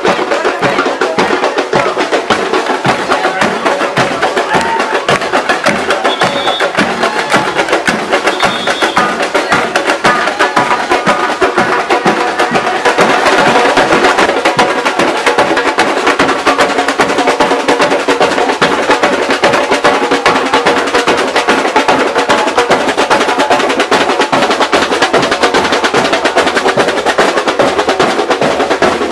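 Marching carnival drum troupe playing a fast, continuous batucada-style rhythm on bass drums, hand drums and snare drums.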